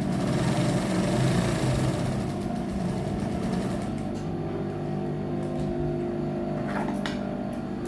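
Electric sewing machine running as it stitches a seam, busiest in the first two or three seconds and then running more steadily, with a few light clicks near the end.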